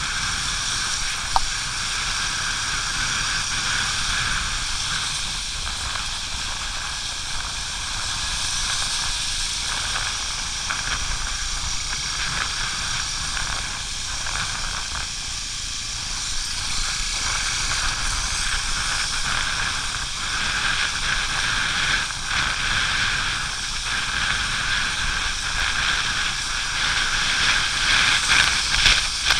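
Motorcycle riding on a wet road: a steady hiss of wind and tyres on wet asphalt over a low rumble, with one sharp click about a second and a half in.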